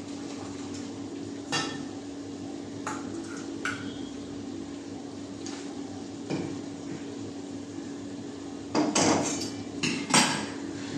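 Stainless steel cooking bowls knocking and clanking on a stove over a steady low hum: a few single knocks, then a louder flurry of metal clatter near the end as a second bowl is set down beside the first.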